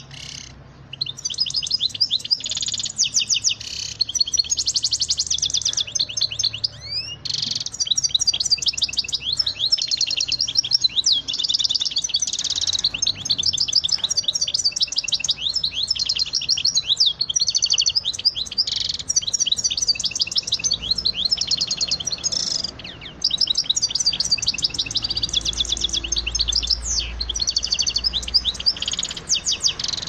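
A small songbird singing continuously in fast, high, trilled phrases, broken by a few brief pauses.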